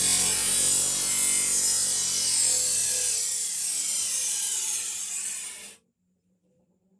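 A dull blade being sharpened against a power grinder: a steady, loud grinding rasp that stops abruptly near the end.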